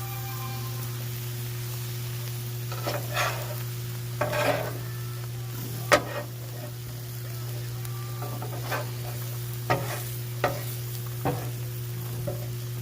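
Bacon sizzling on the flat steel top of a 22-inch Blackstone propane griddle as it browns. About eight sharp scrapes or taps, typical of a metal spatula working the food on the steel, come at uneven intervals.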